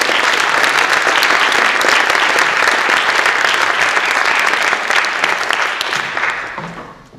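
Audience applauding: dense, steady clapping that starts to die away about six seconds in.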